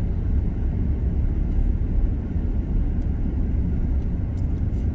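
Steady low rumble of a car driving slowly along a paved road, heard from inside the cabin: engine and tyre noise.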